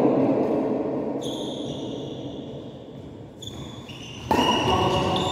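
Badminton play on an indoor court: shoes squeaking on the court floor about a second in and again later, then a sudden louder stretch of shoe squeaks and court sounds near the end.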